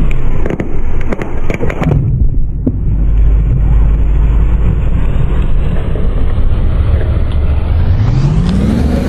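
Car tyre crushing an inflated plastic toy football in a mesh net: a cluster of sharp cracks and pops in the first two seconds as the ball gives way and flattens, over a steady low rumble of the car. Near the end the rumble rises in pitch.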